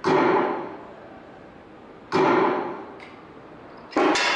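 Shooting gallery gun sound effects played through speakers: three sharp bangs about two seconds apart, each fading away over about half a second, the third with a ringing tone.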